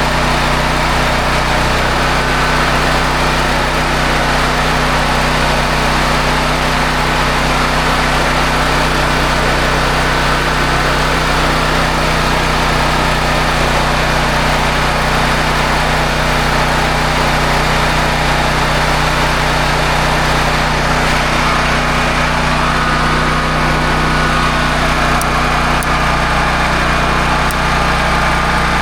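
Honda EB5000X portable generator's single-cylinder engine running steadily at its governed speed, with no surging.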